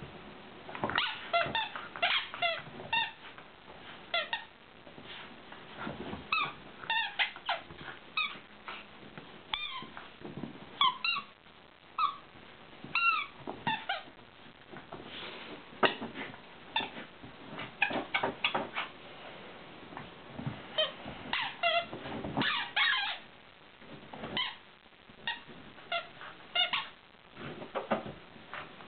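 Rubber squeaky dog toys squeaking as a dog bites and chews them: quick runs of short, high squeaks with pauses in between.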